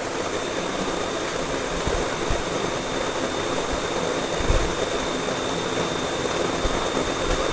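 Steady rushing noise with a faint, high, steady whine.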